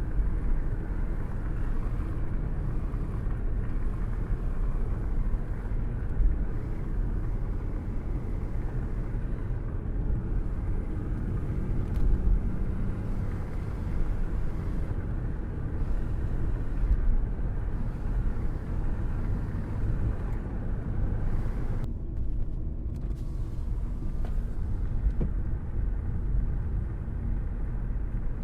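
Steady rain with a deep continuous thunder rumble underneath. About three quarters of the way through, the higher part of the rain hiss briefly drops away for about a second, leaving only the rumble.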